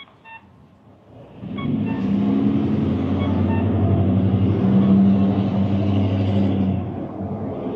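A motor vehicle passing along the street: its engine swells in about a second and a half in, runs loud and steady at one low pitch for about five seconds, then fades near the end.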